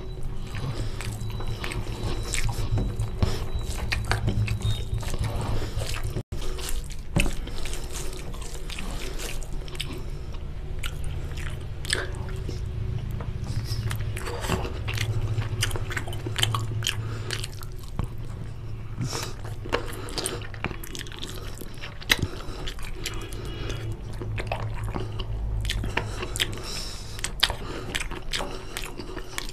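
Close-miked eating sounds: chewing, lip smacks and bites into chicken curry and rice, with wet squishing as bare fingers mix the rice into the curry. The sounds come as a dense run of short, irregular clicks and crackles.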